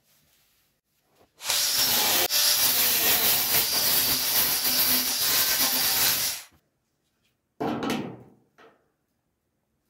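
Angle grinder with a cutting disc slitting through the steel flange of a car's front wing. It cuts for about five seconds, starting about a second and a half in and stopping abruptly, and a short burst of noise follows about a second later.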